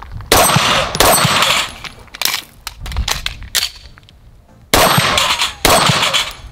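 A string of pistol shots at a steel plate rack, each shot followed by the clang of a struck steel plate, with a gap of about a second near the middle during a magazine change.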